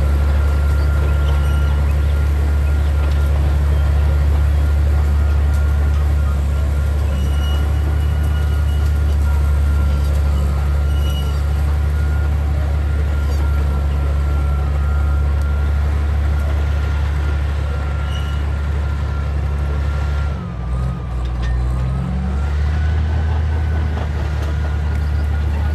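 Motor vehicle engine running steadily with a deep drone. About 20 seconds in the engine note dips briefly and then settles at a slightly different pitch.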